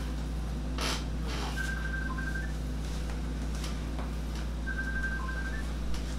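A quick run of short, high electronic beeps that repeats about every three seconds, over a steady low hum, with a few soft rustles.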